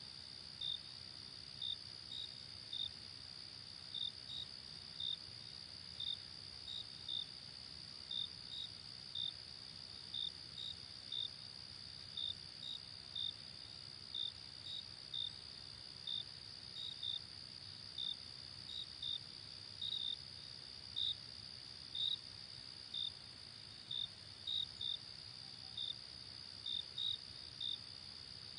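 Night insects: crickets chirping in short separate chirps, irregularly spaced at about one or two a second, over a continuous high-pitched insect trill and a faint low rumble.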